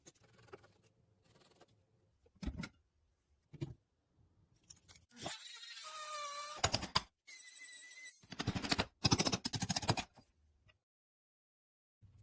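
Hand work on a rusty metal cake slicer: a couple of short knocks, a squealing scrape, then a quick run of sharp scraping strokes on metal.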